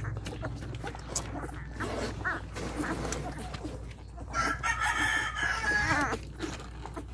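A rooster crows once, a held call of about a second and a half starting a little after four seconds in and falling away at the end, over scattered short, faint squeaks.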